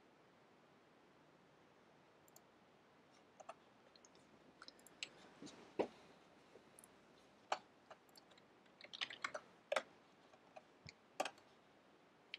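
Faint, irregular clicks of a computer mouse and keys. They start about two seconds in and come more thickly, several in quick succession, around nine to ten seconds in.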